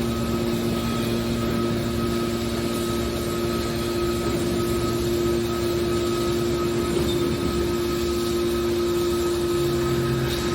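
Scrap metal baler running steadily: a constant machine hum with a couple of steady tones over an even noise, typical of its motor and hydraulic pump at work. A deeper hum joins near the end.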